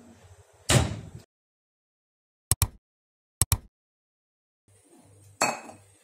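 A clunk of a microwave door, then two pairs of short sharp clicks in silence, and near the end a glass bowl knocking and clinking down on a stone countertop.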